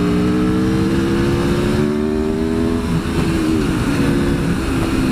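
Aprilia Tuono V4 1100's V4 engine pulling hard under acceleration, its pitch climbing steadily for about three seconds before the revs drop back and it runs on steadier. Heavy wind rushes over the unshielded microphone.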